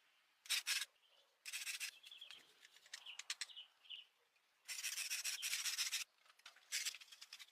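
Repeated rubbing strokes against the truck's surface, in short hissy bursts with a longer, steadier stretch about five seconds in.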